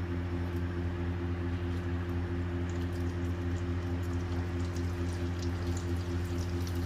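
Hot oil sizzling steadily as vegetable Manchurian balls deep-fry in a kadhai, with a fine crackle, over a steady low hum.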